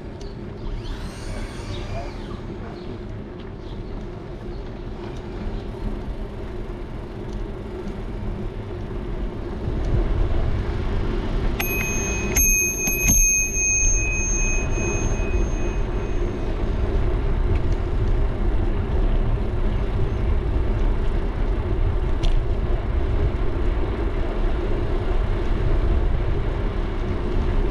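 Bicycle bell rung a few times in quick succession about twelve seconds in, the ring dying away over a few seconds. Under it runs a steady rumble of wind and tyres on the bike-mounted camera, louder from about ten seconds in as the bike picks up speed.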